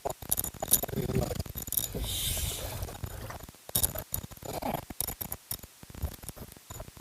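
Scattered clicks and rattles of fishing tackle as a hooked hairtail is hauled up from the water, with a brief hiss about two seconds in.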